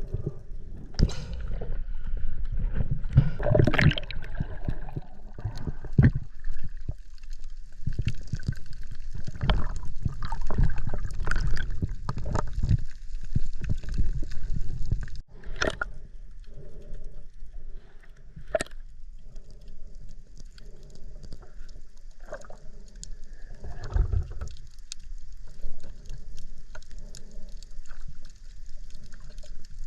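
Water sloshing and gurgling around a small boat, with irregular knocks; about halfway through it cuts abruptly to a quieter, steadier stretch.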